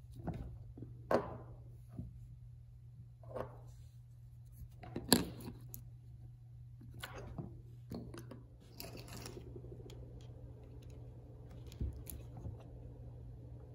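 Small handling sounds as a diecast toy car body and small plastic parts are fiddled with and set down on a cutting mat: scattered taps, clicks and rustles, the loudest about five seconds in, over a steady low hum.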